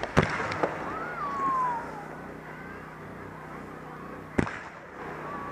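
Fireworks going off: a sharp bang just after the start, a smaller one half a second later, and another loud bang about four and a half seconds in.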